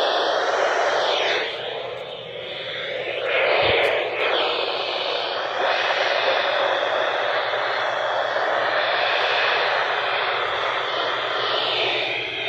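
Radio static from a weather radio receiver: a steady hiss of noise with no clear signal, dipping and swelling briefly a couple of times.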